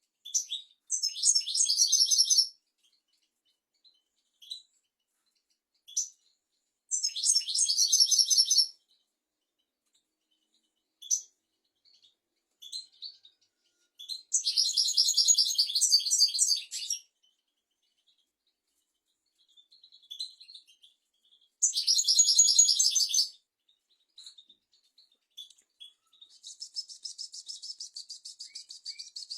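European goldfinch singing: five phrases of rapid high twittering, each about two seconds long, with single call notes between them. The last phrase, near the end, is a more even, fast trill.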